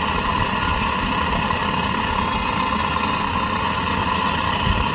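Gas burner of a furnace running steadily on its regulator at about 5 psi: an even, unbroken roar of gas and flame.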